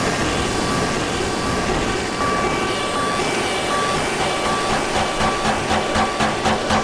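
Noisy electronic drone from Eurorack modular synthesizer patches and iPad found sound: a dense wash of noise with intermittent steady held tones. About two-thirds of the way through, a regular pulse of about three beats a second sets in.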